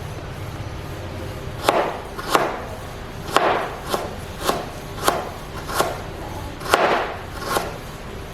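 Knife chopping on a wooden cutting board: about ten sharp chops at an uneven pace of roughly one every half second, starting a little under two seconds in.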